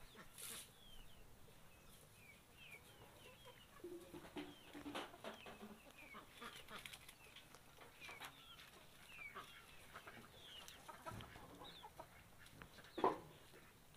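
Poultry clucking, with many short, high falling chirps throughout and one louder call about a second before the end.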